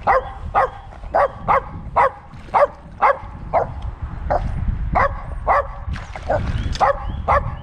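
A dog barking over and over, about two short sharp barks a second with a few brief pauses, excited enough that it is told to calm down and be quiet.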